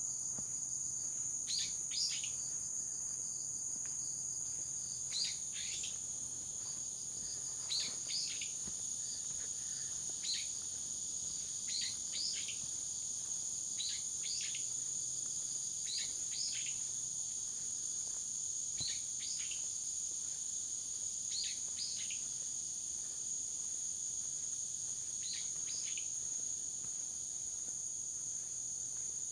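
Insects trill steadily in a continuous high-pitched drone, while a bird repeats short high calls every second or two, fewer of them in the second half.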